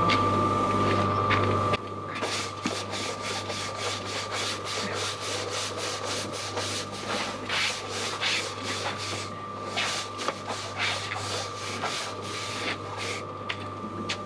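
Repeated scraping strokes of a long-handled tool pushed across a concrete yard, about two or three a second, with a short pause partway through. A steady machine hum drops away sharply about two seconds in.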